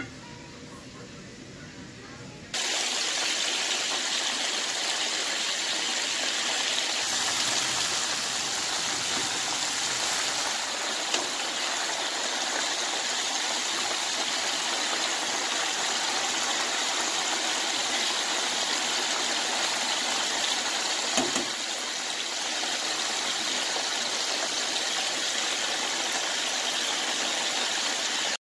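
Starch-coated chicken deep-frying in vegetable oil: a steady, dense sizzle that starts suddenly a couple of seconds in and cuts off just before the end.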